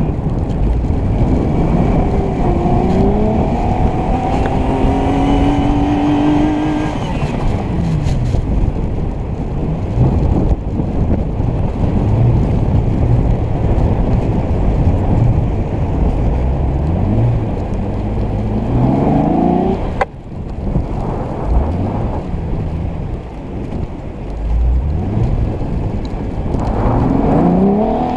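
Jeep Wrangler engine revving up and easing off several times as it pushes through deep snow, over a steady heavy rush of noise.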